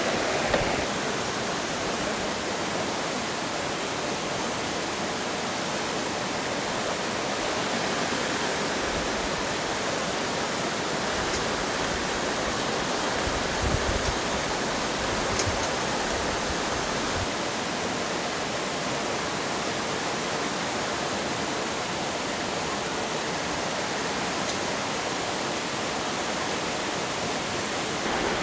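River water rushing steadily past, an even hiss of fast-flowing water.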